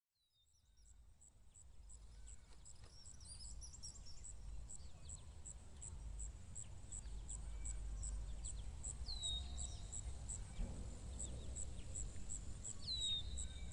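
Outdoor nature ambience fading in: a high insect chirp repeating steadily about two to three times a second, a few short bird calls, and a low steady rumble.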